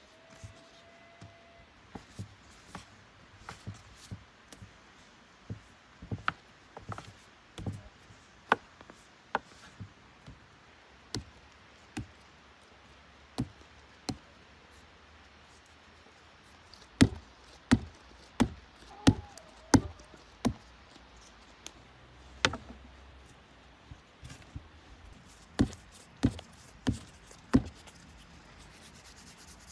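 Food being chopped with a knife on a cutting board: separate sharp chops at an uneven pace, about one a second, with a louder, quicker run a little past halfway and again near the end.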